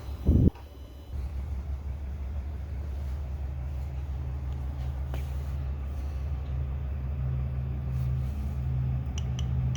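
Chinese diesel air heater's blower fan running in its start-up phase, before the fuel pump begins. It makes a steady low hum, and a second, higher hum tone joins about three seconds in as the fan picks up. There is one brief loud thump about half a second in.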